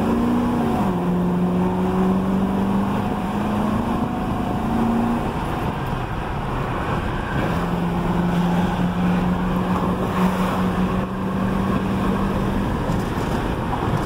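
Car engine and tyre-and-wind noise heard from inside the cabin while driving. The motor's hum rises and settles about a second in, drops away around five seconds, and comes back a couple of seconds later. No wheel-bearing squeak or clack is heard; the hub bearing is new.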